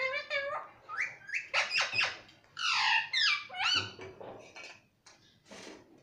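Indian ringneck parakeet chattering and squawking in a quick run of short calls that slide down in pitch, with a few sharp taps mixed in. It fades out about five seconds in.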